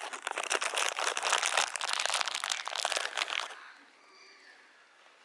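Close crinkling, crackling rustle right at the microphone, like plastic or a coat being handled, lasting about three and a half seconds and then stopping.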